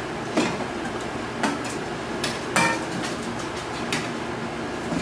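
Hanging metal tin cans and chain on a puppies' play frame clanking as Nova Scotia Duck Tolling Retriever puppies tug and knock at them: four separate metallic clanks, the third, about two and a half seconds in, the loudest and ringing briefly.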